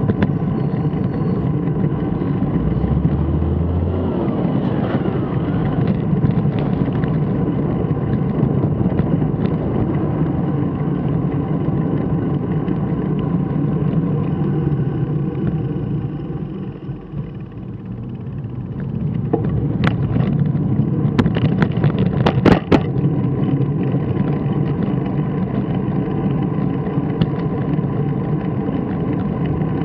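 Continuous rumble of wind and vehicle noise on a ride-mounted camera while moving. It drops off as the ride slows for a stop about 16 seconds in, then builds again as speed picks up, with a few sharp clicks shortly after.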